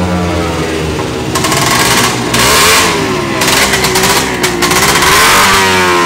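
Single-cylinder two-stroke racing motorcycle engine running and being revved. Its pitch dips and climbs a few times as the throttle is worked, and it grows louder and harsher a little over a second in.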